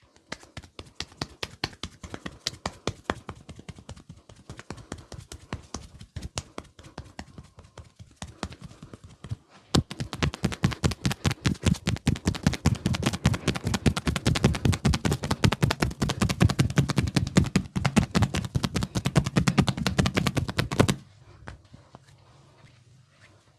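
Percussive massage with the hands: rapid, rhythmic slaps and chops on a person's head and back. They run at about five strikes a second at first, then after a brief break come louder and faster, and stop suddenly near the end.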